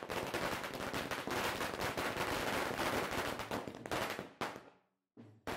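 A string of firecrackers going off, a rapid crackle of many overlapping bangs that stops about four seconds in. One more single sharp bang follows near the end.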